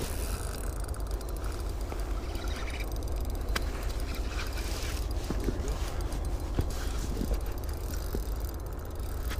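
Wind rumbling steadily on the microphone, with scattered light clicks from an ice-fishing spinning reel being worked against a large lake trout on the line.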